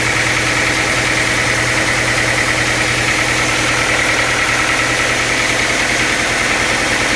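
Sawmill machinery running steadily: a constant drone with a steady high whine over a low hum.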